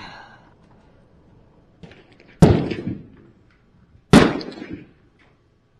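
.22 LR rifle firing two shots a little under two seconds apart, each a sharp crack with a short fading echo.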